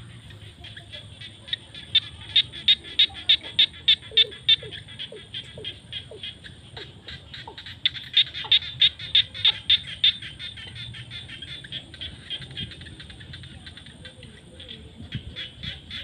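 A chorus of frogs calling from wet fields: a constant train of rapid, high clicking pulses, with two loud runs of quick calls, about five a second. The first run is about two seconds in and the second about eight seconds in. A thin steady high tone sits above the chorus.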